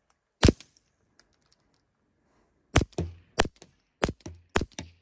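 Suppressed .22 LR pistol shots from a Ruger Mark IV 22/45 fitted with a Little Spoon silencer, firing CCI Quiet semi-auto ammunition: each shot a short sharp crack. One shot about half a second in, then after a pause a quick string of about six shots near the end.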